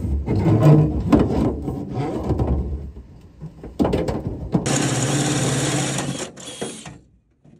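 Knocking and scraping of conduit and wire being handled in an aluminum boat hull, then a DeWalt cordless drill runs steadily for about a second and a half.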